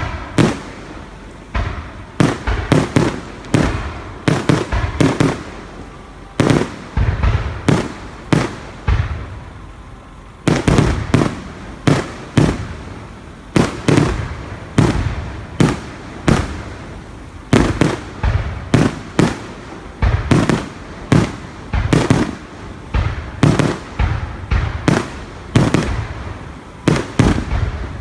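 Fireworks going off: a long run of sharp bangs, often several in quick succession, each trailing off in an echo.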